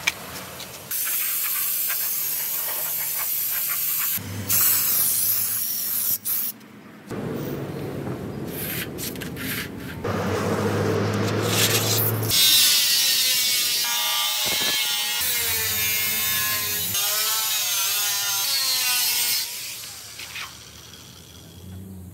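A stiff straw broom sweeping on concrete at the start, then an angle grinder cutting thin sheet steel in short edited stretches, its whine wavering up and down in pitch under load in the second half.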